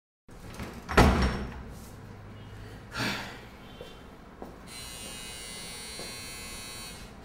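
A heavy thump about a second in and a lighter one near three seconds. Then an electric doorbell buzzes steadily for about two and a half seconds.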